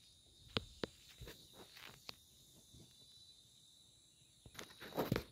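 Handling noise from a phone being held up to film: scattered sharp clicks, then a louder cluster of rustles and knocks near the end, over a faint steady high tone.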